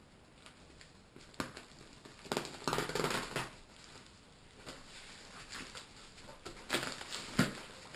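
A shipping package being opened by hand: packaging handled in irregular bursts of rustling, scraping and clicks, busiest a few seconds in and again near the end.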